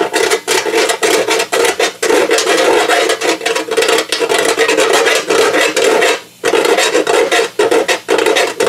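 Small hand file rasping back and forth in quick strokes on the edge of a hole in a sheet-steel panel, cleaning up and opening out the hole. The strokes break off briefly about six seconds in.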